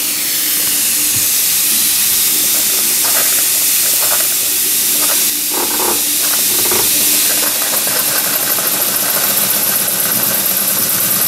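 Jensen #50 electrically heated model steam engine running under steam, with a steady hiss of steam; it runs smooth and quiet.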